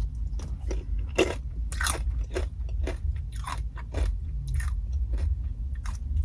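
Crunching and chewing of a fried crab rangoon: a string of sharp, irregular crisp crunches as the fried wonton wrapper breaks between the teeth, over a steady low hum.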